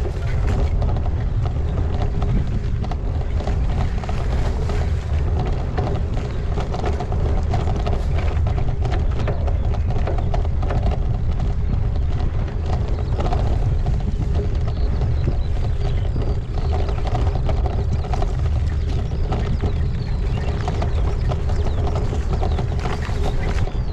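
Riding noise from a bicycle recorded on a GoPro riding with it: a steady low rumble of wind and tyres with frequent rattles and clicks from the bike.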